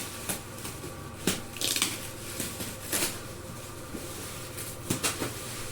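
Cardboard and plastic packaging being handled and cleared away: rustling and crinkling with a few sharp knocks and clicks.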